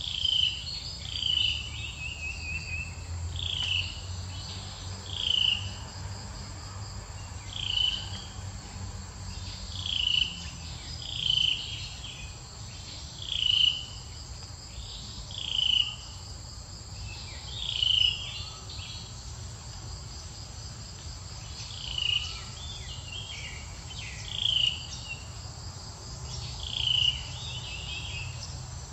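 Outdoor insect chorus: a loud chirp repeated about every two seconds over a steady high insect hiss.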